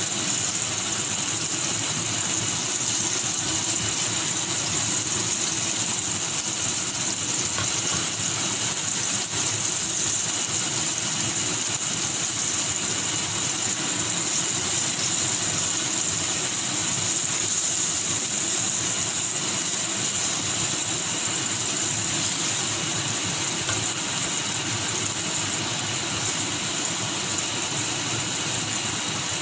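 Flour-dredged beef cubes sizzling in hot olive oil in a stainless steel wok: a steady frying hiss that holds at the same level throughout.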